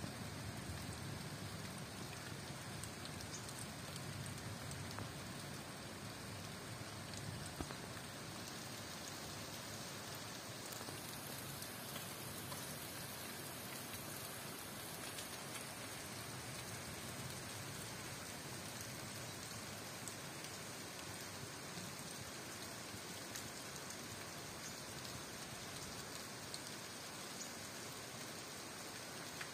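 Steady tropical rain falling on the jungle: an even hiss with scattered faint drop taps.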